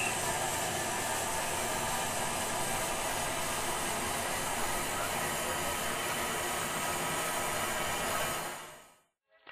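Train running: a steady rushing noise with no clear rhythm, fading out about a second before the end.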